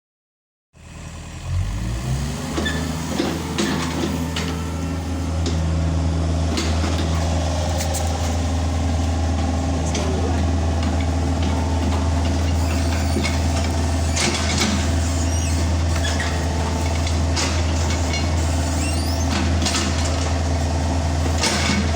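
Excavator's diesel engine starting up, its pitch rising briefly about a second in, then running steadily with a low drone, with scattered short knocks.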